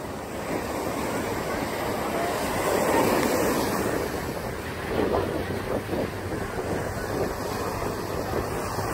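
Small surf breaking and washing up on a sandy beach, swelling and easing, with wind on the microphone.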